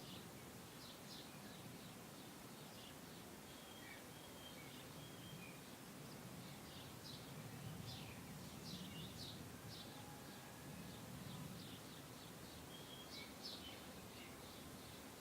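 Faint birdsong: many small birds chirping and twittering in short high calls throughout, over a soft low background rumble.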